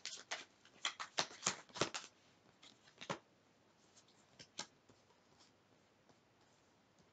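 A tarot deck being shuffled by hand: a quick run of sharp card snaps over the first two seconds, then scattered single snaps that thin out and fade to faint ticks by about halfway.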